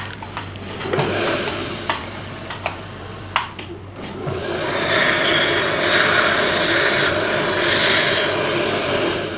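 Dental suction tip drawing air and fluid from the patient's mouth: a steady, loud hiss that starts about four seconds in and stops just before the end. Before it come a few scattered clicks and knocks of instruments.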